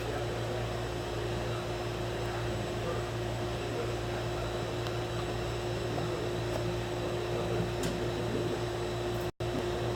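Steady machine hum with a constant tone running through it; the sound cuts out for an instant near the end.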